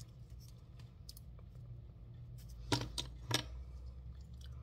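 Small pressed-board puzzle pieces clicking and tapping as they are handled, with two sharper clacks about two-thirds of the way through.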